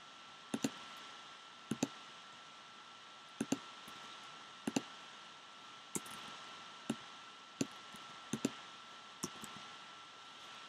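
Computer mouse clicking: scattered single and double clicks, about one a second, over a low steady hiss and a faint constant high-pitched hum.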